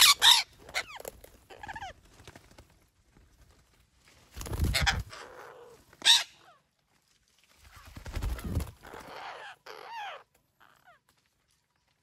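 Parakeets at a tree-hollow nest giving harsh calls that slide down in pitch, in three bunches of calling with a short sharp call between, mixed with rustling and wing flutter. It falls quiet near the end.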